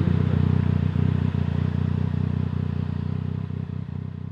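Yamaha MT-09's inline three-cylinder engine, breathing through an Akrapovic full-system exhaust with the dB killer removed, running at a steady note with no revving. The sound fades out near the end.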